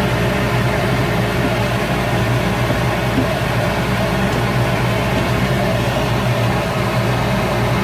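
Shop Fox W1836 midi wood lathe running steadily: an even motor hum with a broad hiss over it.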